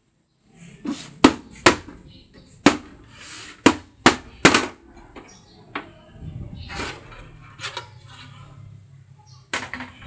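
Desktop computer case being handled on a tile floor: a string of sharp knocks and clacks from its panels, then a rougher scraping stretch about six seconds in as the top cover is slid off the chassis, and a few more knocks near the end.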